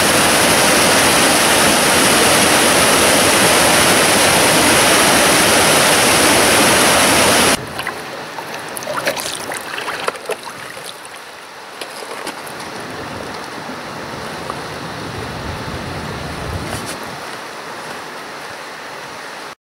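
Glacial meltwater torrent rushing loudly and steadily over boulders; it cuts off suddenly about seven and a half seconds in. What follows is quieter water lapping at floating ice on the meltwater lake at the glacier front, with small scattered clicks.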